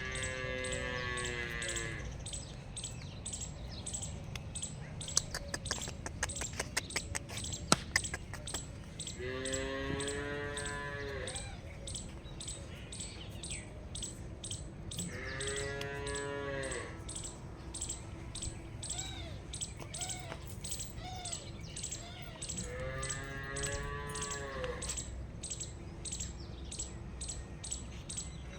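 Dairy cows mooing: four long calls several seconds apart, over a regular ticking of about two ticks a second and a low steady hum.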